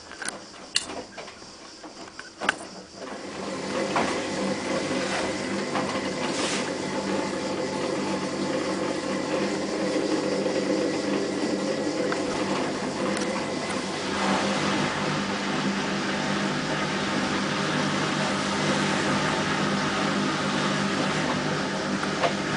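Hotpoint-Ariston AVXXF137 washing machine: a few clicks, then its motor starts about three seconds in and runs with a steady hum that grows a little louder about halfway through.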